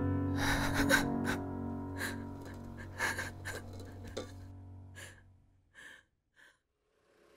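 A woman sobbing in sharp, gasping breaths over soft piano music. The music fades out about five seconds in, and a couple of last gasps follow on their own.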